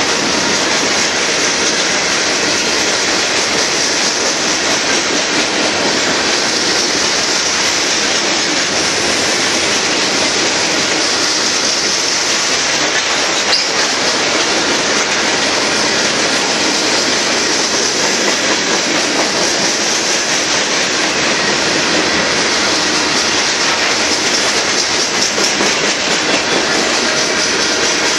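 Loaded hopper cars of a Union Pacific aggregate train rolling past at steady speed, wheels clacking over the rail joints in a loud, unbroken rumble and hiss, with one brief high squeal about halfway through.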